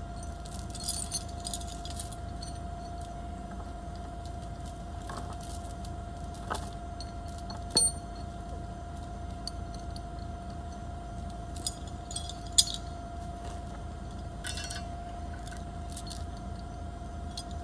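Propane Yale forklift idling with a steady hum and a steady whine, while loose metal jangles and clinks as the fence post is rigged to the forks, with a couple of sharper clanks about eight and twelve seconds in.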